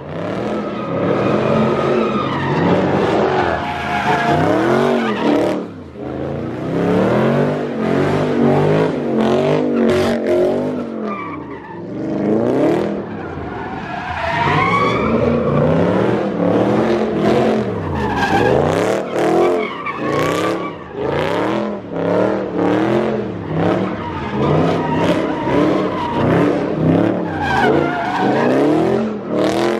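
Dodge Charger doing donuts: its engine revs up and down over and over while the rear tyres squeal and spin on the asphalt.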